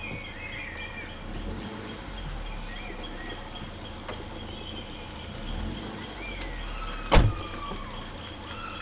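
Crickets chirring steadily, with a few short whistled bird calls and a low hum. About seven seconds in comes one sharp knock, the loudest sound.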